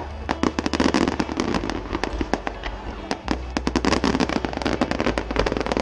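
Fireworks display: a rapid, dense string of bangs and crackles, many per second, over a steady low rumble.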